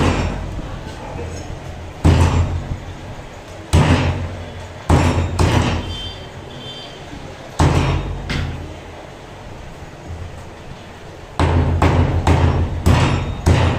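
Heavy cleaver chopping chicken pieces on a wooden log chopping block: single hard chops a second or two apart, then a quick run of chops near the end, over a steady low hum.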